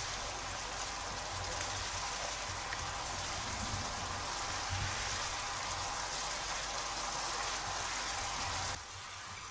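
Thick curry masala paste sizzling and spattering in a frying pan as it is fried down with a little water, stirred with a wooden spoon, with soft low thuds from the stirring. The sizzle drops suddenly near the end.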